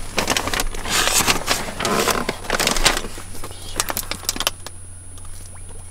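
Paper gift wrapping rustling and crinkling in bursts as it is pulled off a box, followed by a few light clicks as a bottle is lifted out of a wooden box.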